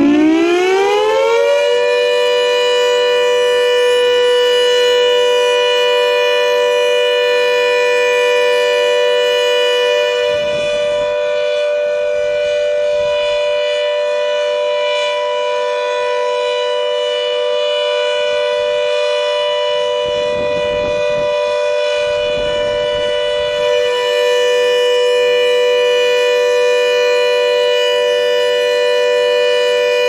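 Air raid siren winding up in pitch over the first couple of seconds, then holding a loud, steady wail rich in overtones. It begins to wind down right at the end.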